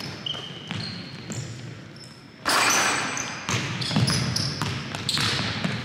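Pickup basketball game on a hardwood gym floor: sneakers squeak in short high chirps and the ball bounces. A sudden loud rush of noise comes in about two and a half seconds in.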